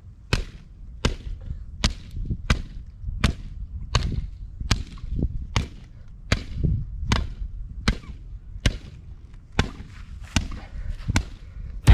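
Barebones Pulaski axe chopping into the trunk of a thin green sapling: a steady run of sharp wooden chops, a little faster than one a second.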